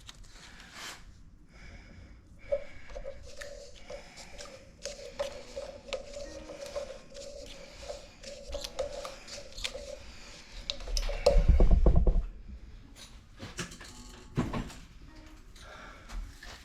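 Teflon thread-seal tape being wrapped around a pipe fitting's threads: light rubbing and clicking, with a steady faint tone for several seconds. A heavy thump comes about 11 seconds in, and a smaller knock a few seconds later.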